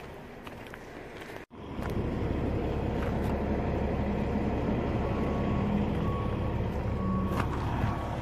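Motor vehicle engine running close by as a steady low rumble. It follows a brief cut-out about a second and a half in.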